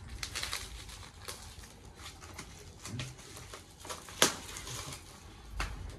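Plastic packaging crinkling and rustling as it is pulled and torn open by hand. Scattered crackles throughout, with one sharper snap about four seconds in.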